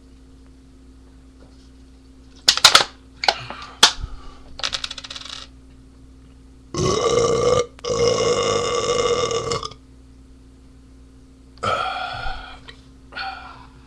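A man belching loudly after drinking beer: two long drawn-out belches back to back about halfway through, then two shorter ones near the end. A few sharp clicks and knocks come a few seconds before the first belch.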